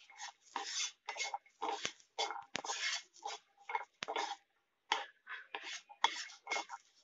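Wooden spatula scraping and tapping across a dry non-stick frying pan, stirring garlic cloves and red chillies roasting without oil: short, irregular scrapes with a few sharper knocks.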